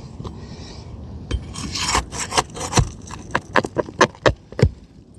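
A pry tool scraping under a lifted asphalt shingle tab to reach the nail, then about ten sharp clicks and scrapes over the next few seconds.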